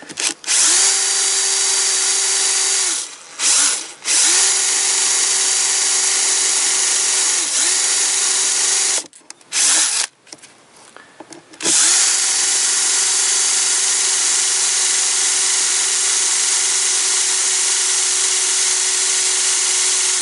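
Cordless drill/driver with a small twist bit drilling into the metal pin of a worn windshield-wiper linkage joint: a steady motor whine that rises quickly in pitch each time it starts. It runs in long stretches, stopping briefly about three seconds in and for a couple of seconds around the middle.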